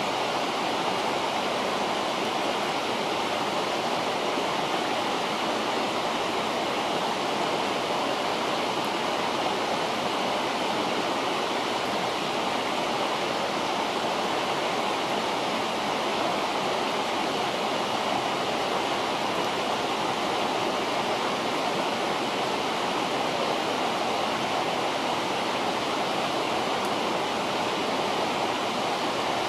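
River water flowing steadily: an even, unbroken rushing.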